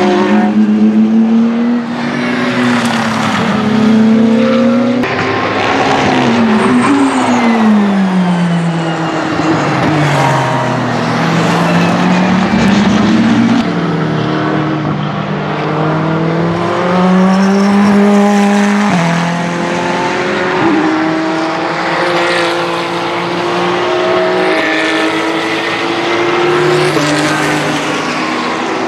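Ferrari 488 GT3 EVO race cars' twin-turbo V8 engines at racing speed, several engine notes overlapping. The notes climb through the gears, drop sharply around six to ten seconds in as the cars brake and downshift, then climb again.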